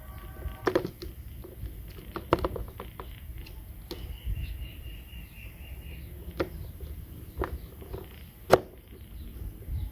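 Irregular light taps and clicks of small plastic toy kitchen pieces being handled, with one sharper click near the end and a faint high squeak for about two seconds in the middle.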